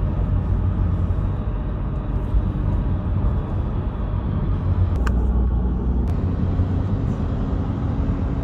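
Steady low rumble of a vehicle driving on the road, engine and tyre noise with no let-up. Two short clicks about a second apart come around five seconds in.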